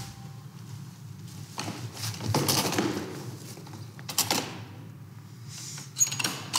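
Handling noise at a plastic pet carrier: rustling of coveralls and straw bedding, with scrapes and knocks on the plastic as hands reach in for a duck, and one sharp click about six seconds in.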